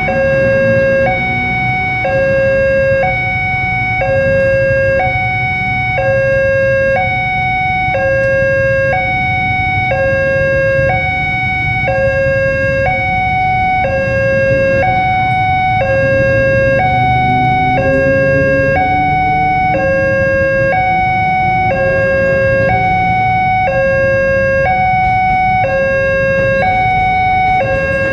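Railway level-crossing warning alarm sounding a steady electronic two-tone, high and low notes alternating about every half second, to warn that a train is approaching.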